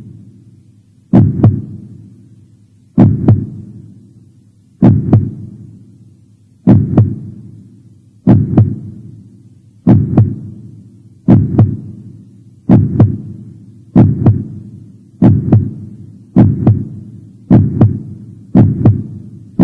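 Heartbeat sound effect: a deep double thump, lub-dub, repeating and speeding up steadily from about one beat every two seconds to about one a second.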